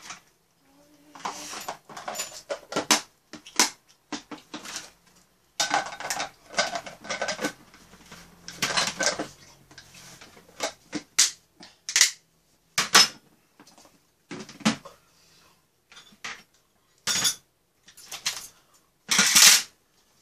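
Clattering and clinking of dishes, a spoon and plastic food containers being handled on a metal tray, in irregular short bursts with brief pauses between.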